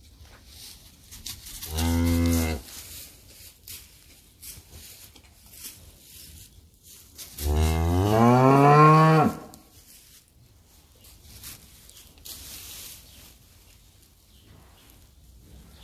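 Cattle mooing twice: a short moo about two seconds in, then a longer moo around eight seconds in that rises in pitch and drops away at the end.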